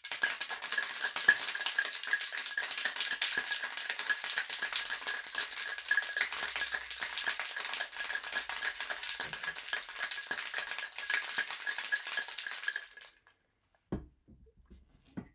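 Ice rattling hard inside a Boston shaker, a metal tin fitted over a mixing glass, as a cocktail is shaken vigorously for about thirteen seconds, with a steady ringing note from the tin. It stops suddenly, and two short knocks follow near the end.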